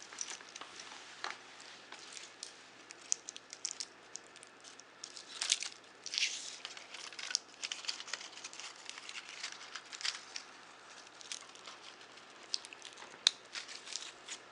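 Handling noise as a steel-bracelet dive watch is put on the wrist: rustling and irregular light clicks of the bracelet links and clasp, with one sharper click near the end as the clasp snaps shut.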